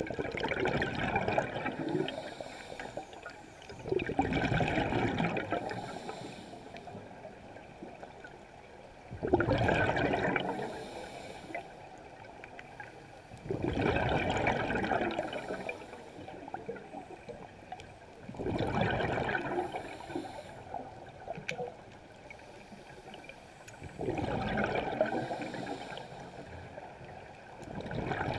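Scuba diver's exhaled bubbles from the regulator, heard underwater: a burst of bubbling about every four to five seconds, each lasting a second or two, with a quieter hiss between breaths.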